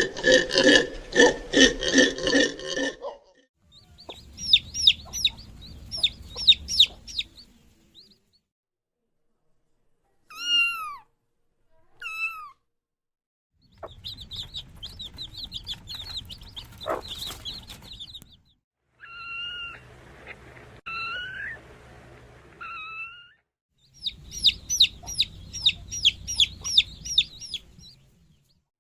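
Farm birds calling in several separate bursts: fast, high-pitched chirping, two short falling cries, and a run of held two-note calls.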